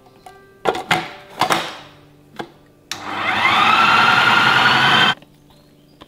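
Plastic food processor lid and pusher clattering and clicking into place, then the processor's motor runs for about two seconds, its whine rising as it spins up, blending minced chicken and beef with tapioca flour into meatball paste, and cuts off suddenly.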